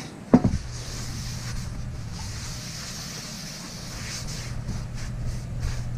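A paper towel rubbing over a freshly oiled, stripped Lodge No. 8 cast iron skillet, wiping off excess oil before seasoning, as a soft, steady hiss. A brief knock just after the start is the loudest sound, and a steady low hum runs underneath.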